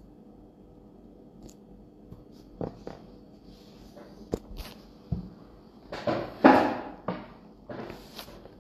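Handling noise on a phone's microphone: scattered clicks and taps, then rustling scrapes a little past the middle, the loudest of them, and a shorter rustle near the end.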